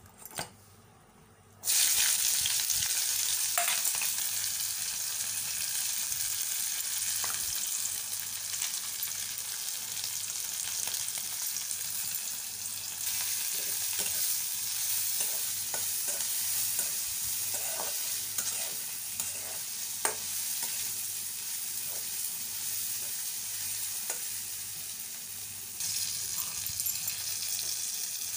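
Sliced onions and green chillies dropped into hot oil in a metal kadai, bursting into a loud sizzle about two seconds in, then frying with a steady sizzle while a spatula stirs and taps against the pan.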